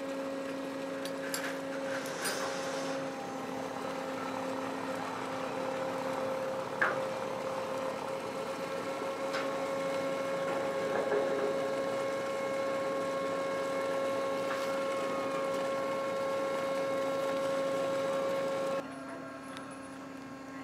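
Steady hum of ship and crane machinery at an even pitch, with a higher whine joining about halfway. A few sharp metal clanks of chain and steel come through it, the loudest about a third of the way in. Shortly before the end the sound drops to a quieter hum.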